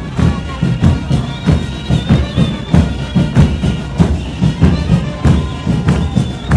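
Murga drum section playing: bass drums (bombos) with cymbals mounted on top beat a driving syncopated rhythm of two to three hits a second. A high whistle is held for over a second near the start and sounds again near the end.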